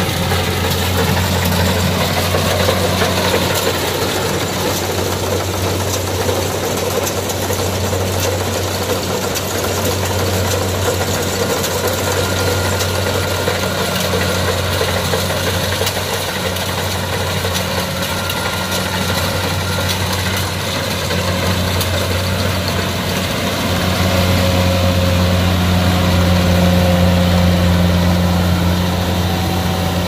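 Kubota DC68G combine harvester's diesel engine running steadily under load while the machine cuts and threshes rice, a steady low drone with mechanical noise over it. It grows louder about three-quarters of the way through.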